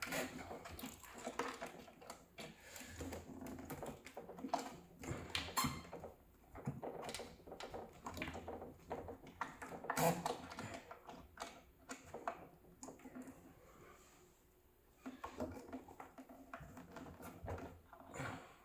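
Hands fitting a stepper motor and its 3D-printed plastic clamp onto a Dobsonian's ground board: irregular clicks, knocks and rubbing as the clamp is pressed down and forward to tension the azimuth drive belt, with the loudest knock about ten seconds in.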